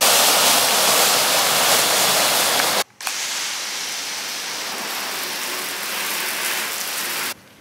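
Water from a hose spray nozzle jetting into a bucket of soapy foam. After a short break comes a quieter, steady hiss as the spray rinses the front of a car, which cuts off suddenly near the end.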